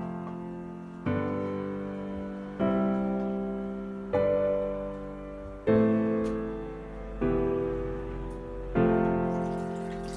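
Background piano music: slow chords struck about every one and a half seconds, each fading before the next.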